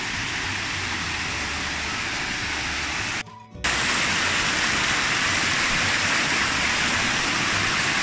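Rushing water of a cascading waterfall stream, a steady hiss. It cuts out for a moment about three seconds in, then comes back a little louder.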